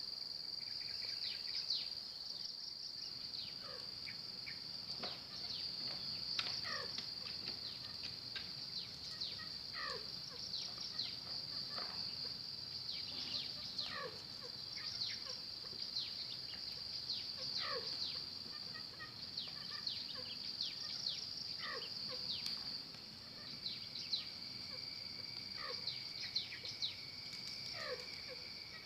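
Steady high-pitched insect trilling, with short bird whistles falling sharply in pitch repeating every second or two; a second, lower steady insect-like tone joins near the end.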